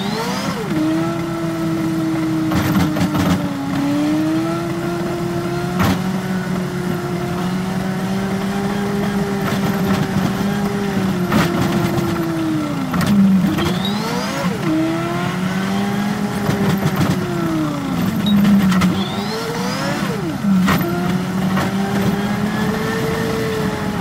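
Yutong ZK6831HGA city bus engine running at road speed, heard from the driver's cab. Its note drifts gently, then sags and climbs sharply again several times, at about 13, 14, 18 and 20 seconds in. Occasional sharp knocks and rattles come from the bus body.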